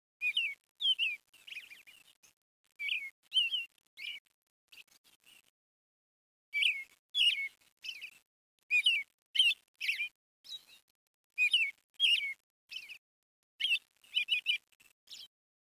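A small bird chirping: short, sharp calls, often in quick pairs or clusters, repeated with brief pauses.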